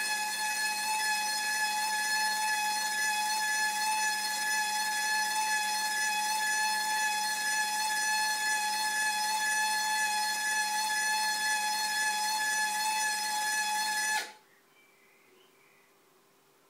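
A house whistling in the breeze: a steady, epic high-pitched tone with a stack of overtones, held at one pitch, that cuts off suddenly about fourteen seconds in and leaves near silence.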